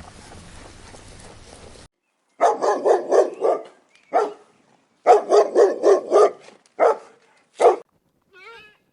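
A dog barking, starting about two and a half seconds in: a quick run of about five barks, a single bark, another quick run, then two single barks.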